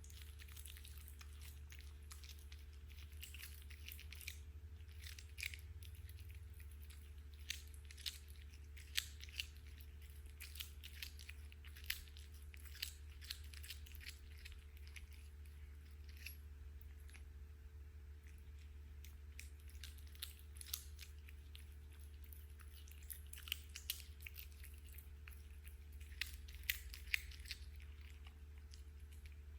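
Cat chewing on a caught bird: irregular crisp crunches and clicks coming in clusters, over a faint steady low hum.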